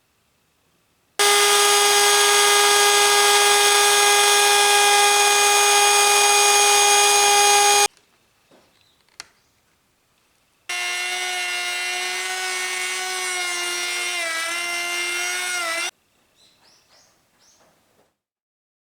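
A high-speed electric power tool runs twice with a steady motor whine, each run starting and stopping abruptly. The second run is quieter and lower, and its pitch sags a few times near the end as the tool is loaded in the cut.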